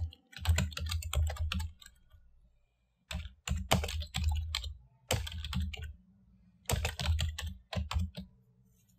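Typing on a computer keyboard: quick runs of key clicks in about four bursts, with short pauses between them.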